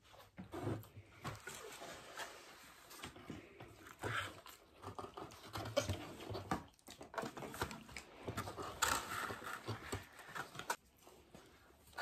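Eating sounds close to the microphone: irregular chewing and mouth noises, with crinkles and taps of cardboard pizza boxes being handled.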